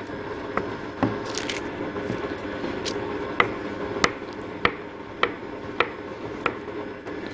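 Kitchen knife chopping chocolate crumble dough into small cubes, the blade tapping sharply through the dough onto the paper-covered worktop about every half second, with the taps growing louder and more regular midway through.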